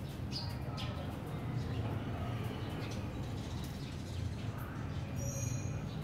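Sparrows giving short, scattered chirps over a steady low background rumble.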